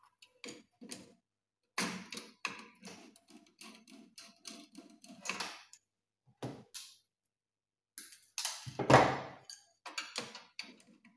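A screwdriver and wire being handled at a circuit breaker's terminal screw: a string of small clicks and taps, then a louder scraping knock about nine seconds in.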